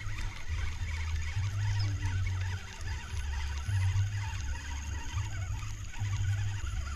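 Spinning fishing reel being cranked to retrieve the line, heard under an uneven low rumble of wind on the microphone.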